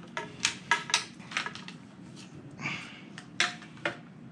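A quick series of sharp clicks and clacks from hard plastic and metal roof-rack parts being handled: a Rhino-Rack crossbar and its black plastic feet knocking together, with a short scrape about two and a half seconds in.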